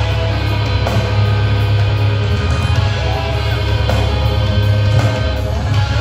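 Live metalcore band playing loud distorted electric guitars, bass and drums, heard from the crowd. A guitar note bends upward about three seconds in.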